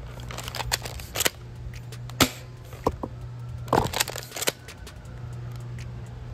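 Double Eagle M56B spring airsoft shotgun being pumped and fired at a steel target: a string of sharp snaps and knocks at irregular intervals, some of them close together.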